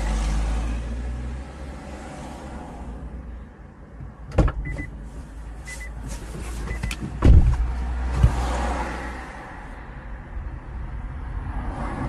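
Car sounds: a sharp click about four seconds in, three short high beeps, then a loud thump a few seconds later and a smaller knock a second after, over a low rumble.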